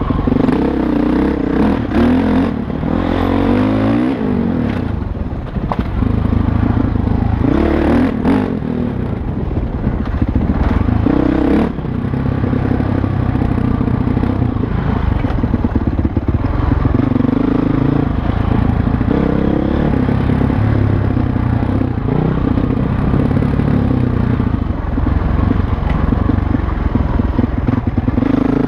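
Dirt bike engine pulling along a rough trail, its pitch rising and falling as the throttle opens and closes, with clatter and a few sharp knocks as the bike goes over bumps.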